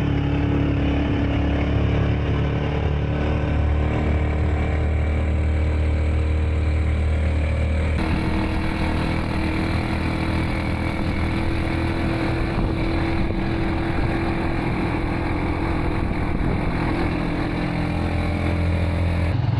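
Motorcycle engine running steadily while riding, with its tone shifting abruptly about eight seconds in.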